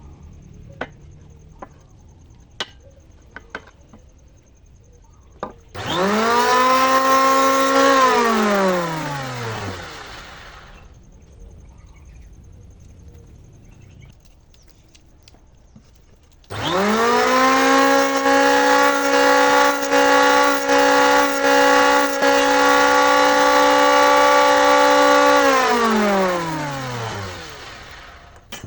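Electric table saw switched on twice. It spins up quickly to a steady high whine, then winds down with a falling pitch. The first run lasts about two seconds; the second lasts about nine, with a few brief dips in loudness in the middle. A few light clicks come before the first start.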